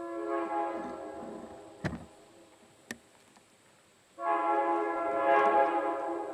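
Locomotive air horn sounding a chord in two blasts: one at the start that fades out by about two seconds, and a second, louder one that starts suddenly about four seconds in and carries on. A few sharp clicks fall between the blasts.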